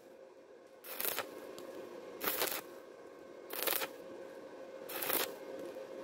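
Stick-welding arc crackling on thin galvanized square tube, with short louder sizzling bursts about every second and a half as the rod is worked along the corner joint.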